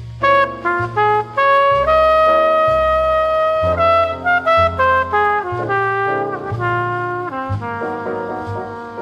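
Jazz trumpet playing a slow ballad solo: a line of short and held notes over a low bass line.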